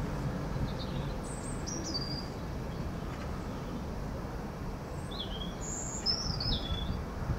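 A songbird gives two short runs of high chirps that step downward in pitch, one about a second in and a longer one around five to seven seconds in. Under them is the low rumble of the receding diesel-hauled train, which fades out early on.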